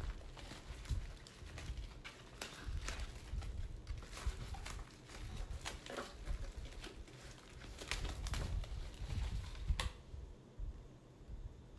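Paper shipping wrap rustling and crinkling as a potted African violet is unwrapped and handled, with many small sharp crackles and a louder click towards the end.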